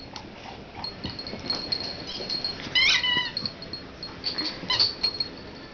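Two dogs playing, with light scuffling and a short high-pitched whine about three seconds in.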